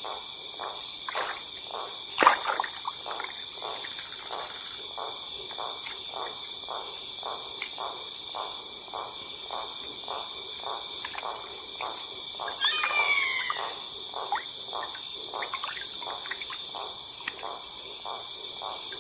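Knife scraping and cutting a pacu while cleaning it, in repeated short strokes about two to three a second, with a sharp knock about two seconds in. A steady high-pitched insect chorus of crickets carries on throughout, and a brief falling call sounds about two-thirds of the way in.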